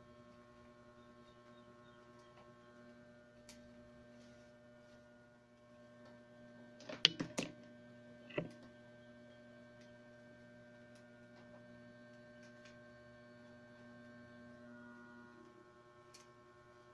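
Steady low electrical hum. About seven seconds in there is a quick run of sharp clicks, with one more a second later, from stiff wicker strands knocking as they are woven between the spokes of a basket base.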